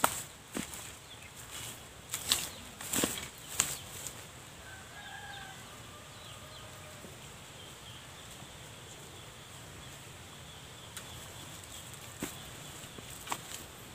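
Crackling and rustling of dry leaf litter under someone moving about. There are several sharp crackles in the first few seconds and a few more near the end, over a faint steady outdoor background.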